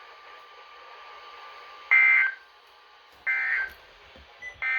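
Emergency Alert System end-of-message data bursts: three short, harsh digital warbles about a second and a half apart, with the last one starting near the end. They are the EAS code that signals the alert has ended.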